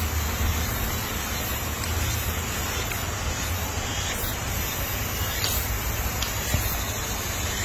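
Steady, even hiss with a low rumble underneath and a few faint ticks; no animal calls stand out.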